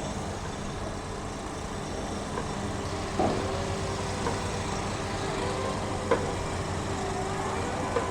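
Heavy construction drilling rig running steadily with a low engine rumble and a held whine, punctuated by three sharp metallic knocks.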